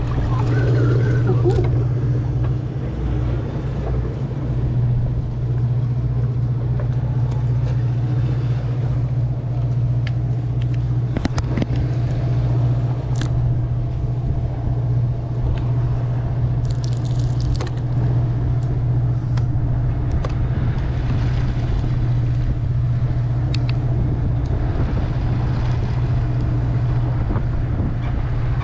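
Steady low drone of the sportfishing boat's engine, with a few faint scattered ticks.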